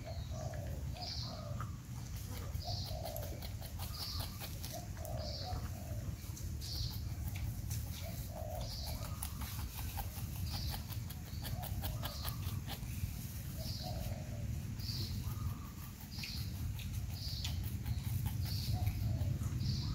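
Porcupine chewing fruit, with soft crunching clicks, over short chirps repeated about once a second and a steady low rumble.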